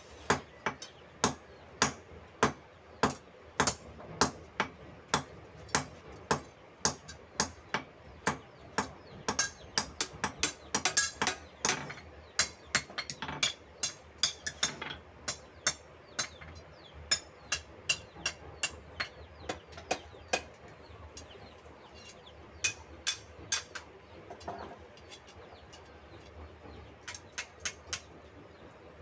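Hand hammer striking a steel bolo blade on an anvil, sharp metallic blows in a steady rhythm of about two a second. The blows come faster and louder near the middle, then break into short groups with pauses in the last third.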